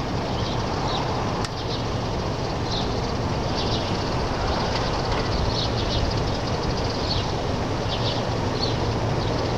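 Loud, steady outdoor background noise with a low hum underneath, and brief high chirps scattered through it about once a second.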